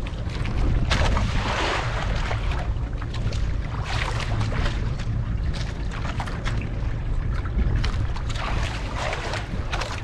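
Small fishing boat at sea in wind: a steady low rumble of wind on the microphone and the boat, with irregular surges of water noise as waves wash against the hull.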